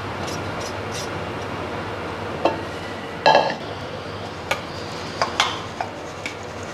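Stainless-steel sieve and bowl being handled while roasted flour is scraped in and sifted: a steady scraping rustle with a run of metal clinks and taps, the loudest a ringing clang about halfway through.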